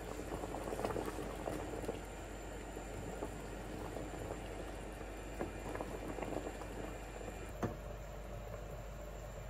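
Brown-sugar syrup boiling in a stainless-steel stockpot with biji salak (sweet potato dumplings) cooking in it, a busy crackling bubble, a little louder in the first couple of seconds. A single sharp tap comes near the end.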